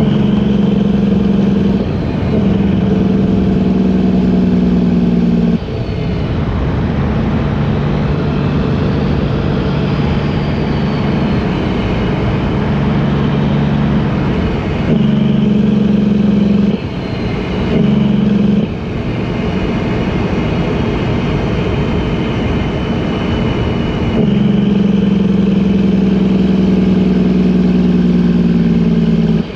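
Engine of a farm vehicle running steadily while travelling on the road, its pitch shifting in steps several times as it changes speed.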